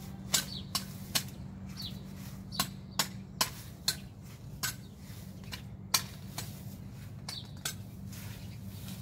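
Grass being cut by hand: a run of irregular sharp snips and clicks from the cutting tool, about one or two a second, over a steady low hum.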